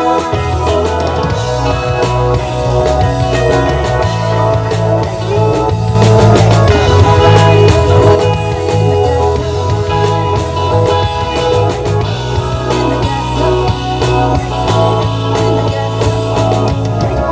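Rock band playing live, with a steady bass line, guitar and a drum kit; it swells louder a few seconds in.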